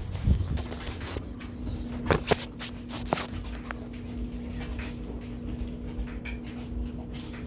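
Phone handling noise: rustling and a few sharp knocks as the phone is moved about, over a steady low hum.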